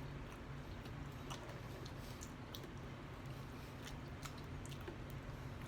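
A person chewing and eating close to the microphone: soft scattered mouth clicks and smacks over a steady low hum.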